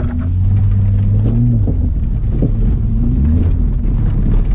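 Holden VS Commodore engine running under throttle, heard from inside the cabin; the engine note drops partway through and climbs again a couple of seconds later.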